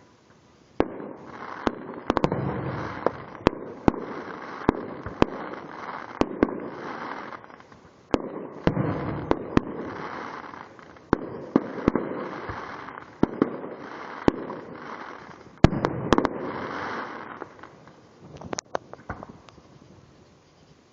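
Fireworks going off: a rapid run of sharp bangs and pops with crackling in between, thinning out and dying away near the end.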